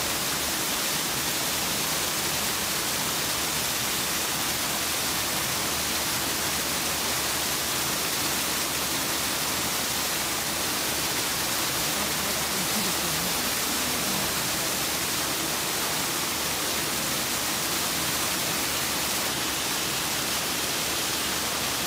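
Steady rushing of water, an even hiss across the whole range that never breaks.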